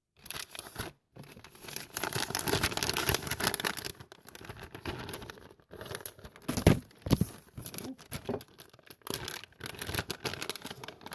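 Plastic packs of soft-plastic baits crinkling and rustling as they are handled, in uneven stretches broken by a few short pauses, with occasional sharp crackles.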